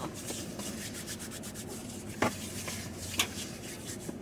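Hands rubbing together, working in hand sanitizer, with a soft scratchy friction sound and two short clicks about a second apart.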